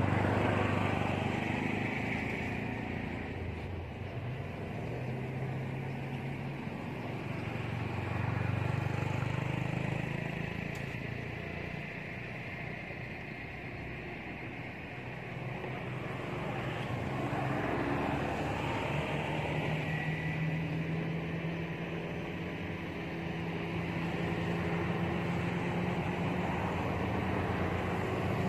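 Hum of motor vehicle engines, swelling and fading several times as they pass, with a steady low drone under it.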